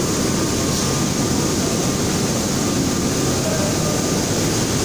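Mario Crosta fabric brushing machine running steadily: an even, unbroken drone and hiss from its motors and rollers as the fabric web runs through.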